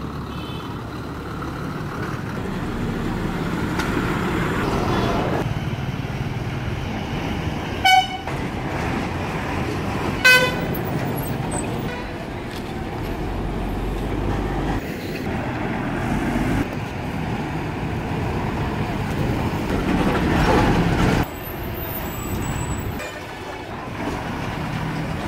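Large bus engines running as buses manoeuvre and pull away, the sound changing abruptly several times as one bus gives way to another. Two short horn toots come about 8 and 10 seconds in.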